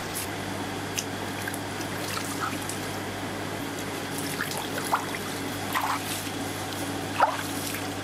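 Water dripping and splashing in a steel basin as whole chickens are handled and lifted out of it by hand, in a few short splashes with the loudest near the end, over a steady low hum.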